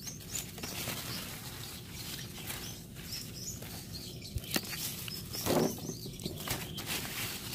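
Bush bean plants rustling and clicking as the pods are picked by hand, with a louder rustle about two-thirds of the way through. Birds chirp faintly in the background.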